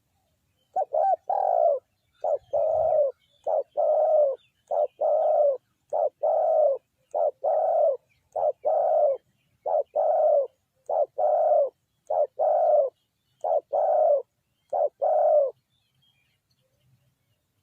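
Spotted dove cooing: a two-part coo, a short note followed by a longer one, repeated about a dozen times at an even pace of a little over one per second, stopping about two seconds before the end.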